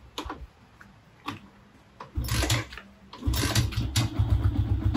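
Yamaha Sniper 150's single-cylinder four-stroke engine being cranked by its starter: a short burst about two seconds in, then a longer one from a little past three seconds, without the engine catching. The owner puts the hard starting down to a weak battery that needs replacing.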